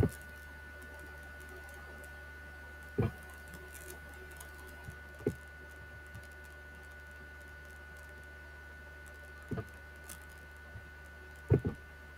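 A steady faint electrical hum with a thin high whine, broken by a handful of short soft knocks on a desk or the microphone. The loudest are a quick pair near the end.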